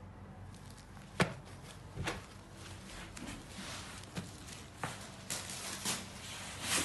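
Silk saree being unfolded and handled: the fabric rustles in soft swishes, with a few sharp taps, over a steady low hum.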